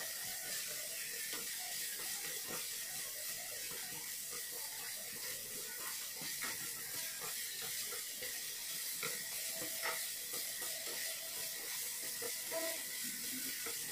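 Carrot and radish strips stir-frying in a pan: a steady hiss of frying with irregular clicks and scrapes of chopsticks stirring against the pan.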